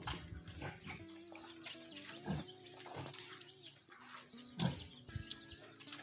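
Farmyard animal sounds: chickens clucking and chirping throughout, with a few loud low grunts from pigs in the pen.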